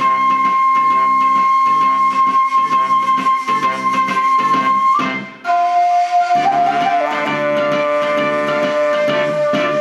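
Shakuhachi of the standard 1.8-shaku length playing an enka tune over a karaoke backing track with a steady beat. It holds one long high note for about five seconds, breaks off briefly, then comes in on a lower note that steps down once more and is held.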